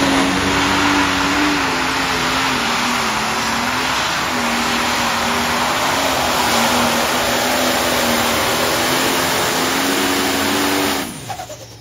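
Case IH light pro stock pulling tractor's diesel engine running flat out while dragging a weight-transfer sled, its pitch wavering slightly under load. It is shut off abruptly about eleven seconds in, at the end of the pull.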